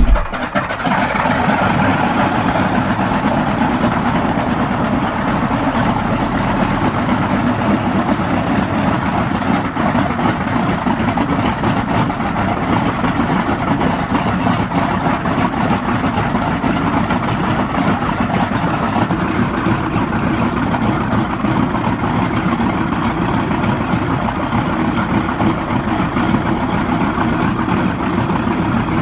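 Old aircraft engine running steadily, a dense rough sound with no change in speed.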